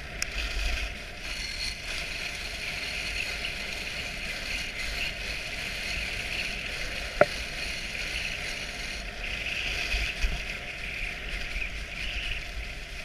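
Dog sled running over snow behind a six-dog team: a steady hiss and rumble from the sled gliding along the trail, with one brief sharp click about seven seconds in.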